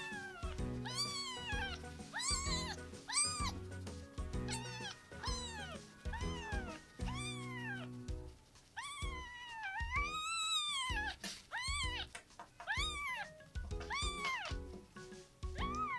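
Newborn kitten mewing over and over, high arched cries about once a second with one longer drawn-out cry near the middle. Soft background music plays beneath.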